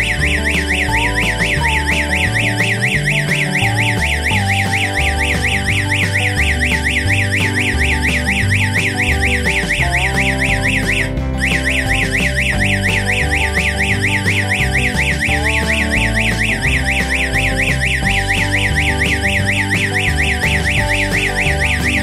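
Siren-strobe unit of a panic-button alarm system sounding a fast, evenly repeating electronic warble. It cuts out for a moment about halfway through and then sounds again: the alarm triggered by a cut panic-button cable. Background music plays under it.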